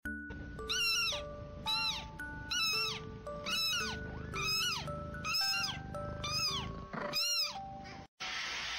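A kitten meowing: seven high calls, each rising and falling, about one a second, over background music. Near the end the sound cuts off and gives way to a steady hiss.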